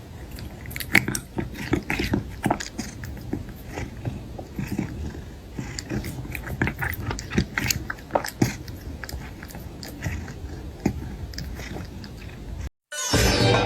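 A cat chewing food close to the microphone, with irregular crunching clicks.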